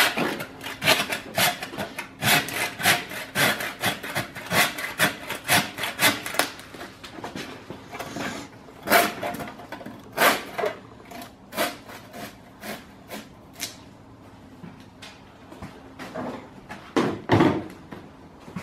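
Hand meat saw rasping back and forth through the bone of a hanging beef carcass, about two strokes a second for the first six seconds, then slower, scattered strokes. A duller, heavier thump near the end.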